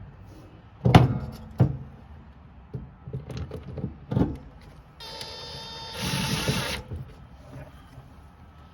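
A few knocks and clunks of parts being handled, then about five seconds in a cordless drill whirs for nearly two seconds, louder in its second half, driving a screw to fasten the new collector box of a Coleman Evcon furnace.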